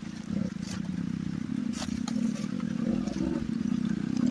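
A motorcycle engine running with a steady, rapid pulse, with scattered clattering knocks and scrapes over it.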